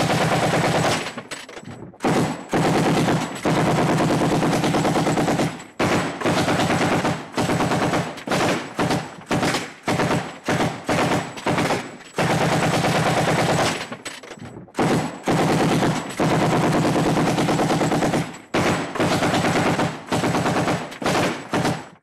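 Machine gun firing in many bursts at a rapid rate of fire: several long bursts of two to three seconds, with runs of short bursts between them.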